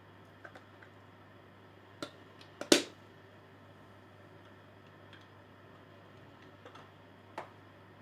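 A few light clicks and taps of objects being handled, with one sharper knock a little under three seconds in, over a faint steady hum.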